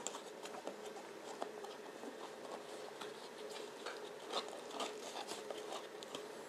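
Faint rustling and light clicks of cardboard being handled as the flaps of a small lens box are folded open and the inner carton touched.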